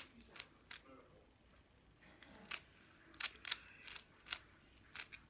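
Plastic speed cube (3x3 Rubik's cube) being turned rapidly by hand: layers clicking and clacking at an uneven pace, several sharp clicks a second.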